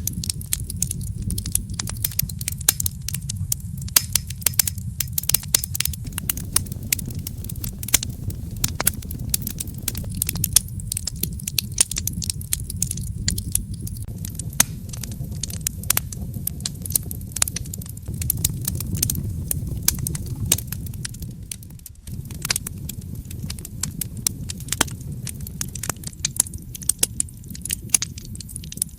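Wood fire in a fireplace crackling and popping, with many irregular sharp snaps over a steady low rumble of the flames. The rumble dips for a moment about three-quarters of the way through.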